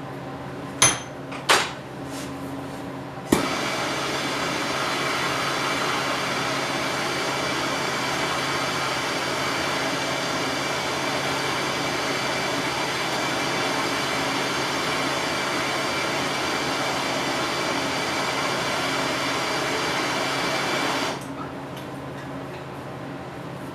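Two sharp metallic clinks, then a click and a MAP gas torch burning with a steady hiss for about eighteen seconds before it cuts off suddenly. The flame is heating a soldered clutch-cable end fitting to melt the solder out.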